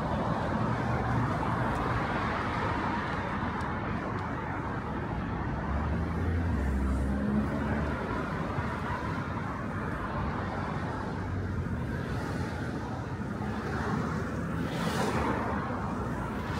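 Steady city road traffic, with vehicles passing continuously. A deeper engine rumble swells about six seconds in, and a passing vehicle's rush of tyre hiss comes near the end.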